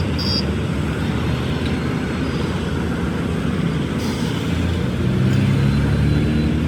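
A motor vehicle's engine running steadily, its note rising a little about five seconds in.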